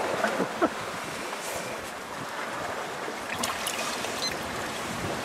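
Water sloshing and splashing in a bucket as dishes are scrubbed by hand, with a few light clinks. A steady rush of wind and sea runs behind it.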